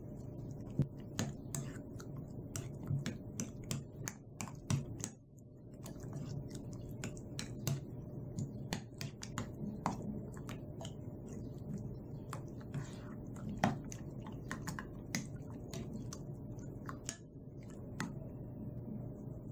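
Metal spoon clinking and scraping against a bowl while stirring raw chicken pieces in egg and seasoning: irregular light clicks, with a brief pause about five seconds in.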